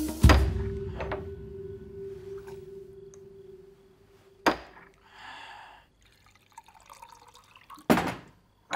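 Liquor poured from a porcelain ewer into a small drinking cup, with sharp porcelain clinks as the cup and ewer are set down on the table. A held note from a sharp hit fades out over the first few seconds.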